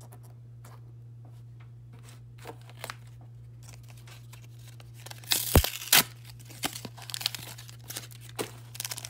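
Pokémon cards and foil booster-pack wrapping handled on a table: a short burst of crinkling and tearing about five seconds in with two sharp snaps, then light clicks and rustles of cards, over a low steady hum.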